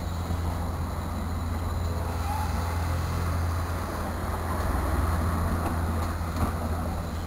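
Steam tank locomotive hauling coaches slowly towards the listener, heard as a steady low rumble.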